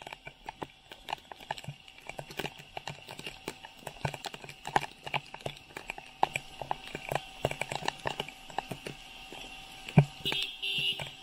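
Heavy monsoon rain hissing steadily, with the irregular sharp taps of big drops landing close by, several a second. The loudest tap comes near the end.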